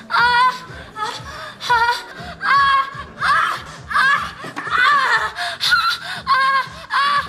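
A woman moaning and crying out in loud, rhythmic sexual pleasure, about ten short, high, wavering cries in a row, with soft background music beneath.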